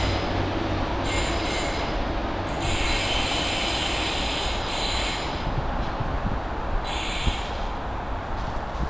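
Diesel multiple unit pulling away with a low, steady rumble, and high-pitched wheel squeal coming and going during the first seven seconds or so before it fades.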